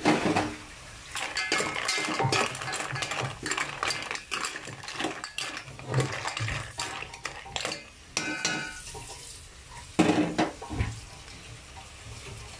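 Green mussels in their shells clattering against an aluminium pot as they are stirred over the flame, in many irregular clicks and knocks over a watery hiss from the cooking.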